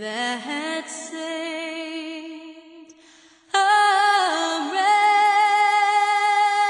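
A woman singing unaccompanied, holding long notes with vibrato: a softer note first, then, about halfway through, a louder, higher held note.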